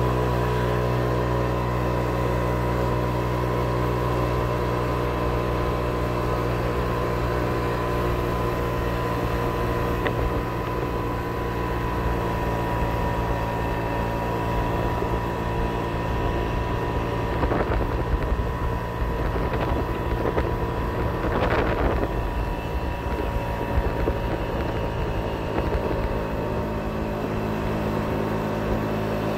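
Moped engine running steadily while riding at about 25 mph, a drone with a steady high whine over wind and road noise. Two brief knocks come about two-thirds of the way through.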